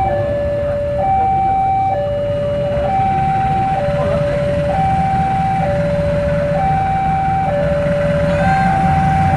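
Two-tone electronic warning alarm alternating steadily between a higher and a lower tone, each held just under a second, over a low mechanical rumble that grows louder near the end.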